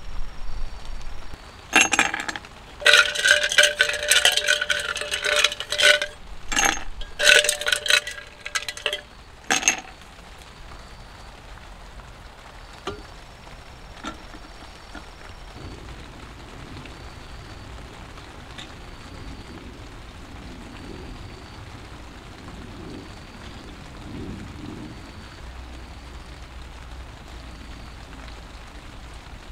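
Clinking and clattering of hard objects, with some ringing, in bunched bursts through the first ten seconds. After that, rain falls steadily.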